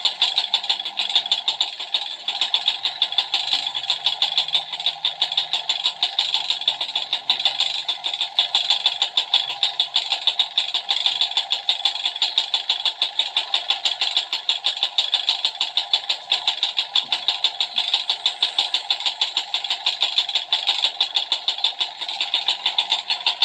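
Small motorcycle engine running steadily at idle with an even, rhythmic knocking pulse, which the mechanic takes for a worn connecting rod and piston.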